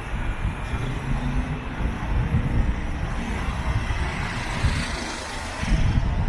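Road traffic: motor vehicles running along a street, a steady, rumbling mix of engines and tyre noise.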